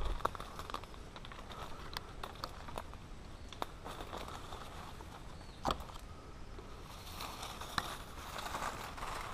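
Footsteps through dry leaf litter on a rainforest floor, with leaves crackling, twigs snapping and undergrowth brushing past. There is one louder crack a little past halfway, and the rustling grows thicker near the end.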